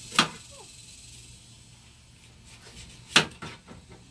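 Kitchen knife cutting through a whole watermelon, with two sharp crunches of the rind about three seconds apart and a few smaller cutting sounds between them.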